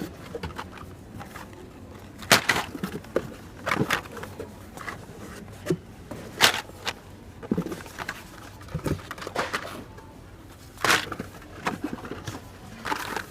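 Carded Hot Wheels cars in plastic blister packs being handled and shuffled, giving irregular clacks, crackles and a few sharper snaps.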